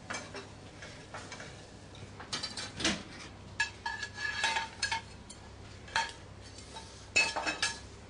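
Kitchen clatter of metal pans, plates and cutlery: irregular clinks and knocks, some leaving a short ringing note, busiest around the middle and again near the end, as an omelette is cooked and plated.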